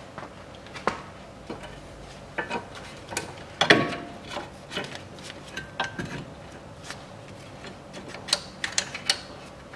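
Scattered metallic clicks and knocks of hands and tools handling the front suspension parts of a car, irregular, with the loudest knock a little under four seconds in.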